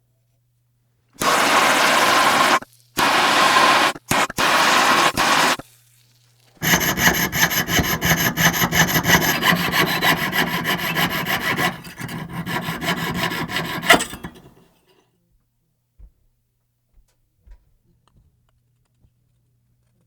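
Hand abrading or sawing: three steady scraping passes, then a longer run of rapid rough strokes that stops about fourteen seconds in.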